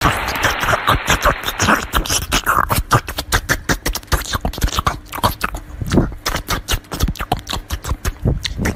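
A small dog chewing and biting into a slice of watermelon: rapid, irregular wet crunches and smacks, several a second.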